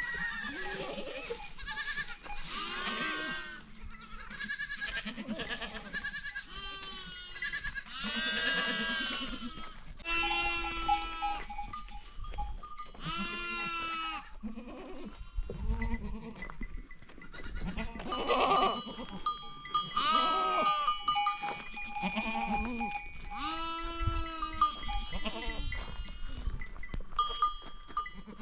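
Goats bleating over and over, many separate calls about a second long following one another. Through the second half a livestock bell rings steadily along with them.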